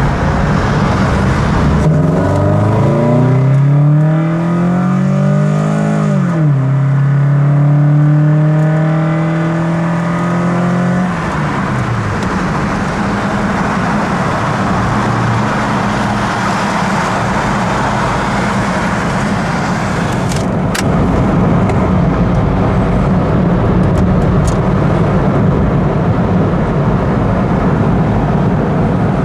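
Toyota Corolla engine breathing through a TRD cold air intake, pulling up in pitch under acceleration. About six seconds in the pitch drops sharply, as at a gear change, then holds steady. After about eleven seconds it settles into a steady rush of road and wind noise.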